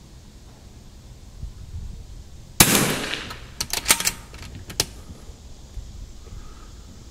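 A single shot from a custom Rim-X bolt-action .22 LR rifle about two and a half seconds in, with a short ringing tail. It is followed within a second or two by a quick run of sharp metallic clicks as the bolt is worked to chamber the next round.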